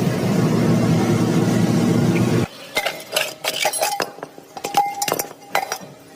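A steady hissing machine noise that cuts off abruptly about two and a half seconds in, then irregular metallic clinks and knocks with brief ringing as metal parts of an old refrigerator compressor are handled during dismantling.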